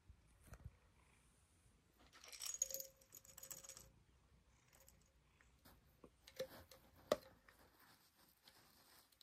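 Small glass jar with a metal screw lid rattling and clinking briefly about two seconds in, with a faint ring, then two sharp taps a few seconds later.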